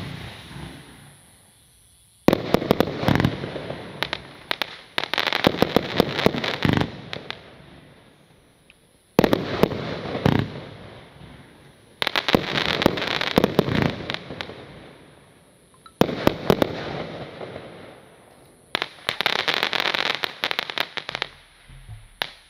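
Funke Chrys Rain F-1, a 25-shot fan firework cake, firing in volleys. Each volley is a rapid cluster of sharp launch and burst reports followed by a fading crackle from the silver crackling tips. About six volleys come a few seconds apart and stop shortly before the end.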